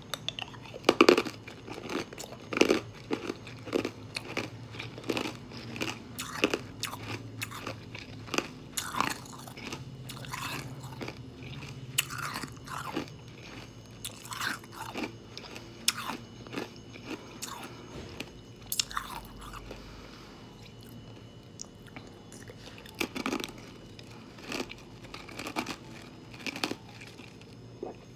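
Ice being bitten and crunched between the teeth right at the microphone: a long run of sharp crunches, the loudest about a second in, easing off past the middle, then picking up again near the end.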